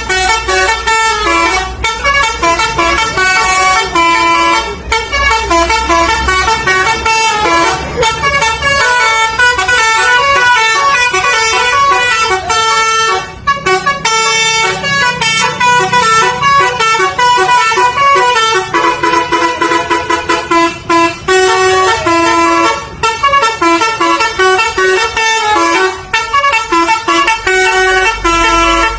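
Indonesian 'telolet basuri' multi-tone bus air horn playing a fast, continuous melody of quickly changing notes, with a brief break about 13 seconds in.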